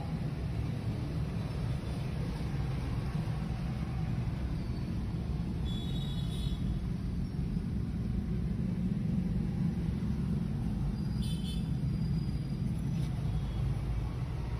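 Steady low background rumble with two brief, faint high tones, about six and eleven seconds in.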